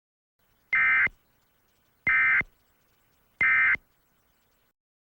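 Three short bursts of EAS digital data tone, the buzzy screech of the SAME end-of-message code, each about a third of a second long and about a second apart. They mark the end of the emergency alert broadcast.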